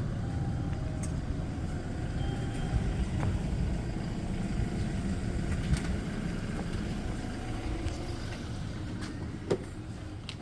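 Steady low rumble of road traffic, with a single sharper knock about nine and a half seconds in.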